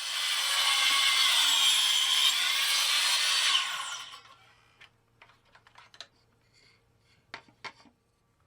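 A woodworking power tool running as it cuts scrap wood to square it up, then winding down about four seconds in. A few light clicks and knocks of wood being handled follow, two of them sharper near the end.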